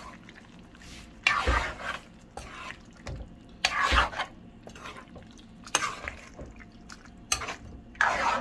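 A ladle stirring chunks of chicken in a thick, wet curd-and-masala gravy in a cooking pan. It comes in about five separate strokes, one every one to two seconds, each a wet squelching scrape.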